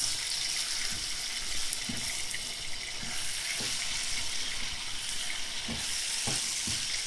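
Eggplant pieces sizzling in hot oil in a frying pan, with a steady hiss. A wooden spatula scrapes through them against the pan several times as they are stirred.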